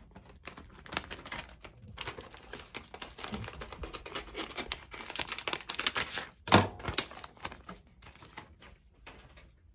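Scissors cutting a sheet of clear transfer tape, a run of quick snips with the plastic sheet crinkling as it is handled, and one louder sharp knock about six and a half seconds in.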